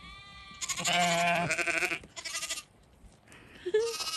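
Sheep bleating: a long, loud, quavering bleat, then a short bleat, and another starting near the end.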